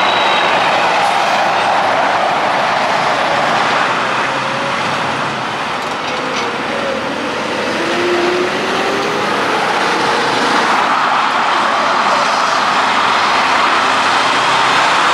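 Semi-trucks and cars passing on a highway: a steady wash of tyre and engine noise that dips a little in the middle and builds again as the next truck comes through.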